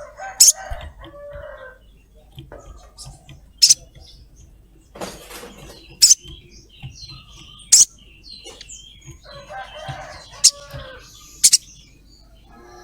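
Olive-backed sunbird giving sharp, high "cret" calls, about six spaced a second or two apart. Twice, around the start and near the end, there is a spell of lower-pitched chattering.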